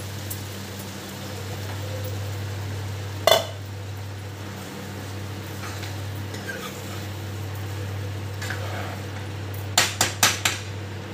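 A metal ladle stirring thick pav bhaji in a pan. It clinks against the pan once about a third of the way in and four or five times in quick succession near the end, over a steady low hum.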